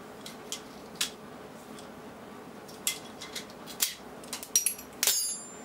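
Pliers clicking and scraping against a stainless steel bar as washers stuck down with Sikaflex are worked off, a few scattered metal ticks, then a sharper metallic clink that rings briefly near the end.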